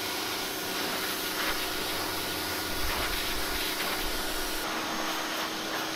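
Portland 1750 PSI electric pressure washer running, a steady hiss of the high-pressure water jet spraying over the steady hum of its motor and pump.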